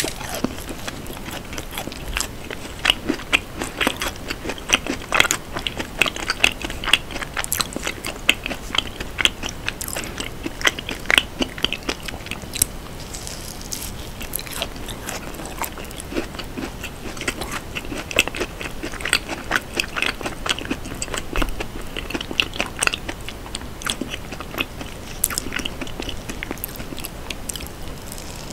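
Close-miked biting and chewing of a soft cake with a crumbly topping: a dense run of small wet clicks and mouth sounds, busiest over the first half and again later on.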